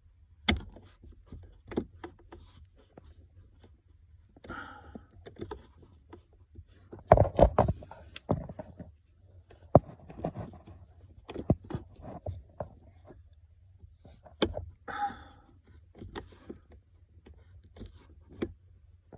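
Scattered clicks, taps and scrapes of a nut driver and plastic trim being handled while small screws are worked out of a car's cabin filter access panel, with a louder clatter about seven seconds in. A couple of soft breaths.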